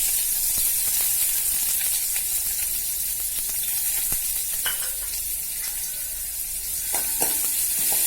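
Chopped shallots sizzling in hot oil in a kadai with mustard seeds and curry leaves, a steady frying hiss. A few light knocks come in the second half.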